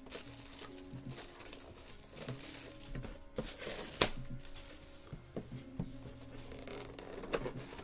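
Hands handling a cardboard trading-card box (2020 Topps Chrome Black): rustling and rubbing with small knocks, and one sharp click about four seconds in.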